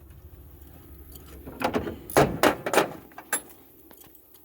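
A quick run of sharp knocks and clatters, about five or six in under two seconds, loudest about two seconds in.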